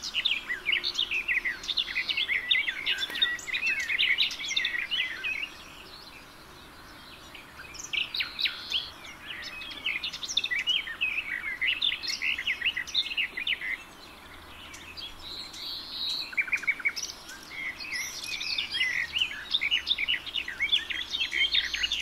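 Small songbirds chirping and twittering in a busy chorus of short, high-pitched calls, which fall quiet briefly twice.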